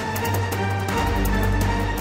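Dramatic background music with a steady beat, strings and a heavy bass line.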